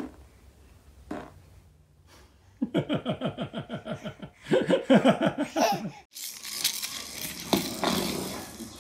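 Baby laughing hard: a fast run of pitched, chopped laugh pulses, about four or five a second, lasting some three seconds in the middle. After it cuts off, an even rustling hiss follows.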